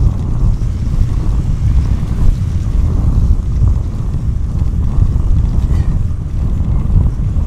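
Wind buffeting the microphone of a camera riding along on a moving bicycle: a loud, gusty low rumble that rises and falls unevenly.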